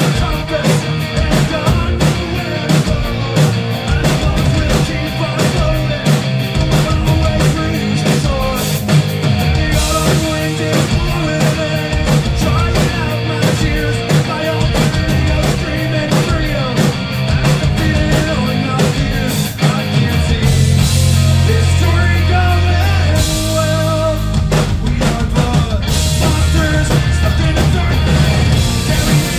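Live rock band playing loud: electric guitar over two drum kits played together, with dense drum and cymbal hits throughout.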